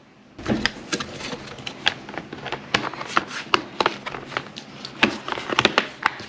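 Irregular sharp clicks and taps of small tools and hard plastic laptop parts being handled and screwed together, over light rustling.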